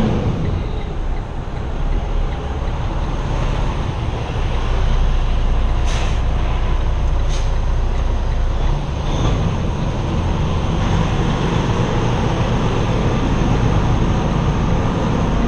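Semi tractor's diesel engine running low and steady, heard from inside the cab as the truck creeps along without a trailer, growing a little louder about four seconds in. Two short clicks come about six and seven and a half seconds in.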